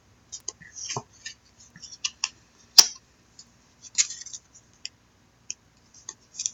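Trading cards being handled: scattered light clicks and scrapes of card stock, with one sharp click nearly three seconds in and a short scraping brush about a second later.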